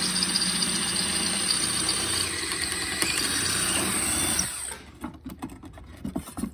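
A power tool runs steadily for about four and a half seconds, then stops, leaving scattered light clicks and knocks.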